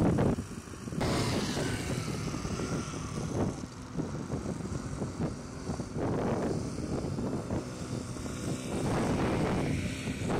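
Road traffic passing with wind rumbling on the microphone. A faint falling whine comes a second or two in, and the vehicle noise swells again about six and nine seconds in.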